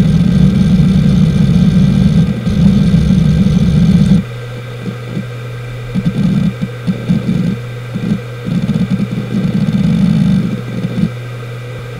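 Samsung SpinPoint F1 HD103UJ 7200 rpm hard drive seeking randomly, its heads making loud, continuous seek noise for about four seconds. The noise then stops abruptly and the drive idles with a steady hum from the spinning platters, broken by short irregular bursts of seek noise.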